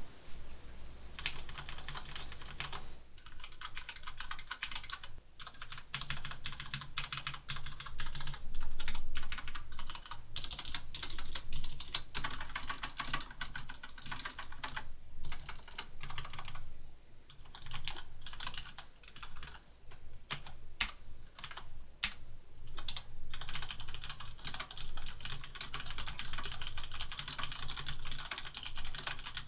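Typing on a Cougar Attack X3 mechanical keyboard with Cherry MX Black linear switches: a fast, continuous run of key clicks and bottoming-out clacks, with a few brief pauses between bursts.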